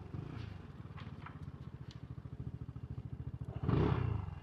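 Keeway XDV250 scooter's 250 cc single-cylinder engine running at low speed, a steady fast pulsing, with a brief louder swell near the end.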